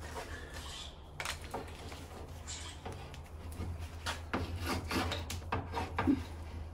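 Handling noise: a series of clicks, knocks and rubbing, coming more often in the second half, over a low steady hum.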